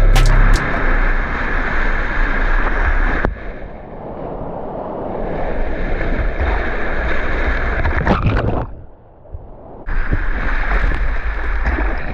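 Whitewater rushing around a kayak running a river rapid, heard close up, with splashes of water and paddle. The rushing changes abruptly a few times, and drops off for about a second near the end before coming back.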